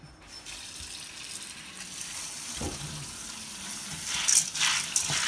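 Kitchen tap water running over dry pinto beans as they are rinsed, growing louder, with a few sharper splashes about a second before the end.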